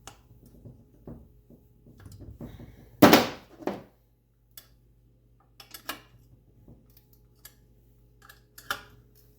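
Metal hand tools clinking against metal while the Allen-head bolts holding a billet fuel rail are tightened: scattered small clicks and taps, with one louder metallic clank about three seconds in.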